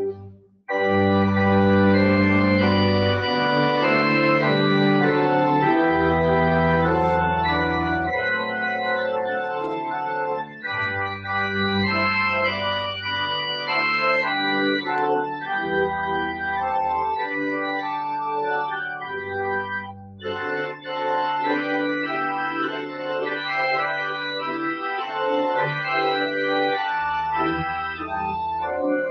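Church organ playing the postlude after the dismissal: sustained chords over long-held bass notes, with a brief break about two-thirds of the way through.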